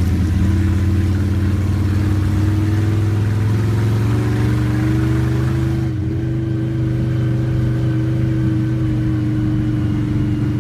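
Monster-truck pickup's engine running under way, heard from inside the cab. Its pitch climbs gently for the first few seconds; about six seconds in, the higher-pitched noise drops away and the engine holds a steady drone.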